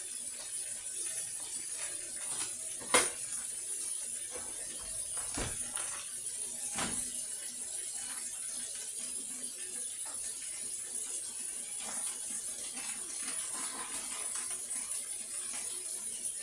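Faint kitchen handling sounds over a steady high hiss: a few sharp clinks of dishes or utensils, the loudest about three seconds in and two fainter ones a few seconds later.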